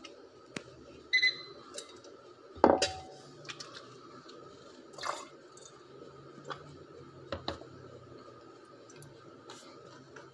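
Scattered light clinks and knocks of glassware over a faint steady hum, the loudest a ringing clink a little under three seconds in.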